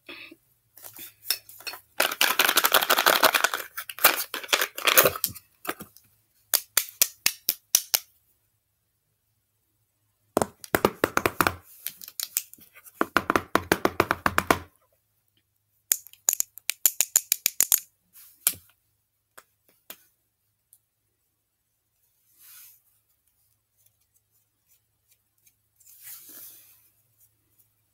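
Slime being worked by hand, sticky clicks and pops coming in rapid trains in three bursts of a few seconds each, with silent pauses between, then two faint short rustles near the end.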